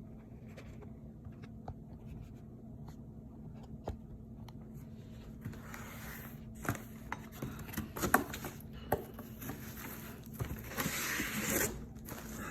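Packaging being handled by hand: scattered clicks and taps, then scraping and rustling from about halfway in, with a longer rustle near the end. A faint steady low hum runs underneath.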